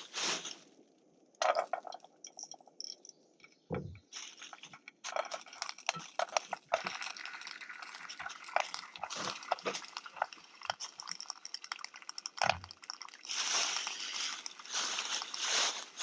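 Thin plastic bag crinkling and rustling while Manila clams are sorted out of it by hand, their shells clicking and clattering against one another. Two dull thumps, about four seconds in and about twelve seconds in.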